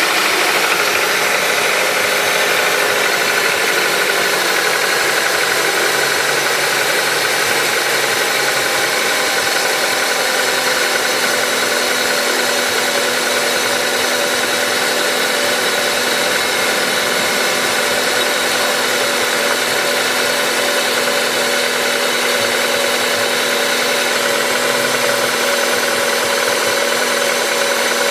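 Honda K20A four-cylinder engine idling steadily with a knock from inside the engine, which the owner says is loud from cold and dies away as the engine warms up.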